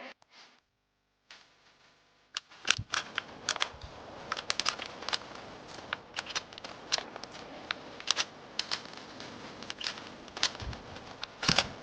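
Airsoft bolt-action sniper rifle being handled and worked: a long run of sharp, irregular metallic clicks and clacks that starts a couple of seconds in, over a faint steady hiss.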